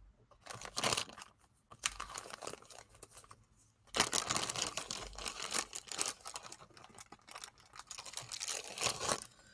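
Plastic bag crinkling and rustling as it is handled and opened, in irregular crackles that turn busy and continuous from about four seconds in.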